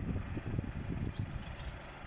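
2018 VW Polo's 1.0 TSI three-cylinder turbocharged petrol engine idling, with a low, uneven pulsing.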